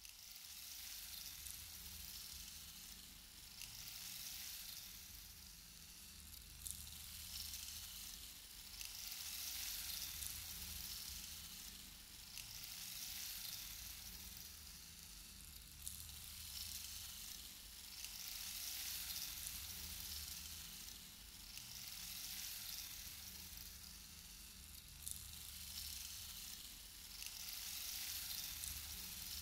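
A sizzling hiss that swells and fades in slow waves every three seconds or so, over a low rumble, with an occasional sharp click.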